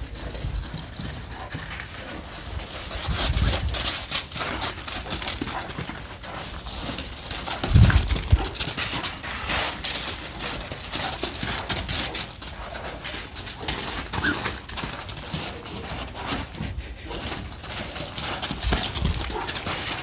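Paws and footsteps crunching on ice-crusted sleet: an irregular run of crisp crunches and crackles, thickest a few seconds in and again around the middle, with a brief low rumble about eight seconds in.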